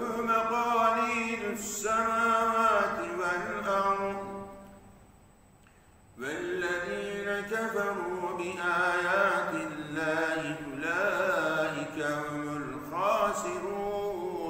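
A man reciting the Quran in Arabic in a melodic chant, holding and bending long notes, with a pause for breath of about a second and a half a third of the way in.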